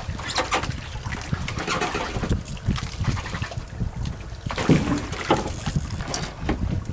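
Water splashing and lapping against a small boat's hull in irregular bursts, over a low steady rumble.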